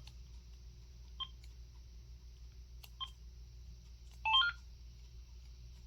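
Cordless phone handset key beeps as menu buttons are pressed: three single short beeps a second or two apart, then a quick run of several stepped tones about four seconds in, as the keypad tone setting is changed.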